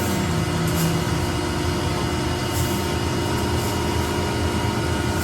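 Steady factory machinery noise: a low rumble with several steady tones held at fixed pitches.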